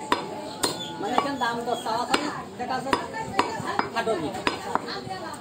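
A heavy butcher's cleaver chopping beef on a wooden log chopping block, sharp strikes about two a second, unevenly spaced, with a metallic clink on each blow.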